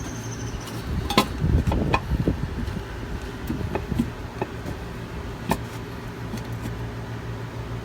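Scattered sharp metallic clicks and knocks of hand tools and hardware as the nuts on an exhaust manifold are snugged up, over a steady low background hum.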